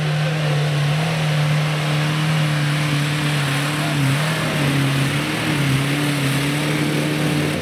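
A roll-caged Toyota off-road 4x4's engine is held at steady high revs as it climbs a steep muddy slope under load. The engine note dips briefly twice midway, then picks back up.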